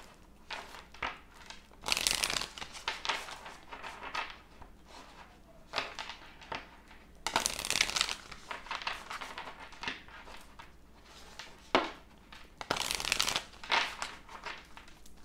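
A deck of tarot cards being shuffled by hand: the cards rustle and slap together in bursts, with the louder spells about two seconds in, around seven to eight seconds, and near thirteen seconds.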